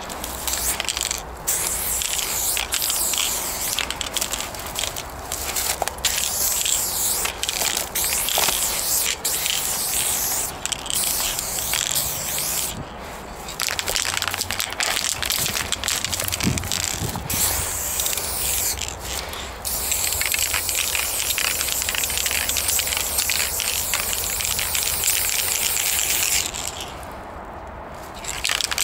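Aerosol spray-paint can spraying in long hissing bursts, with short breaks and a longer pause near the end.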